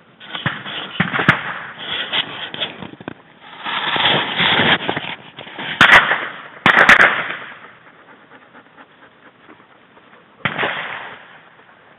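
Shotgun shots: crackling pops early on, then two loud shots about a second apart midway and one more near the end, each trailing off.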